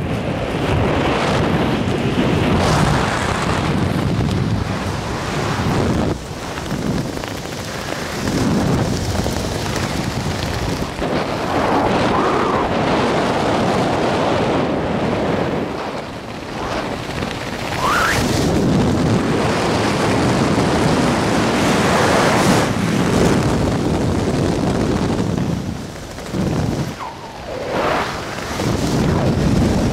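Wind rushing and buffeting over a helmet camera's microphone during a parachute descent under canopy, a loud, gusty noise with a low rumble that swells and dips unevenly.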